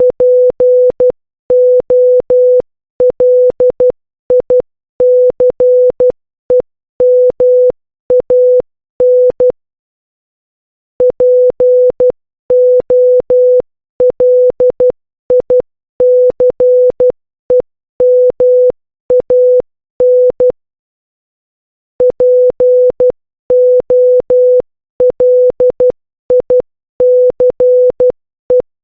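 Morse code sent as a steady beep of about 500 Hz, keyed on and off in short dots and longer dashes. It comes in three runs of characters, with a pause of about a second and a half after the first and second runs.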